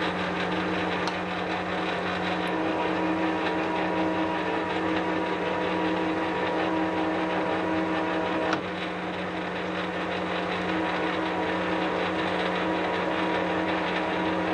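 HBM 250 Vario metal lathe running with its automatic cross feed engaged: a steady machine hum and gear whine from the spindle drive and feed gearbox. A click about eight and a half seconds in, after which it runs a little quieter.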